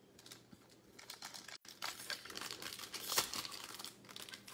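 Foil wrapper of a trading-card pack crinkling and tearing as it is opened by hand, a run of sharp crackles starting about a second in.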